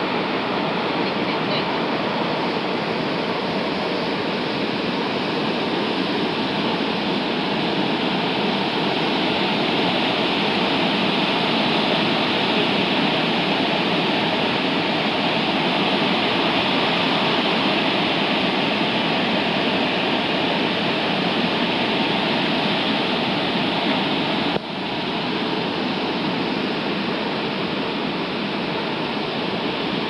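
Sogi Falls, a broad waterfall spilling over rock, and the rapids below it: a loud, steady roar of rushing water that dips for a moment about three-quarters of the way through.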